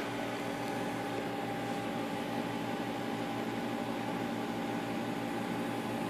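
Aquarium equipment running: a steady hum with several held tones over a hiss.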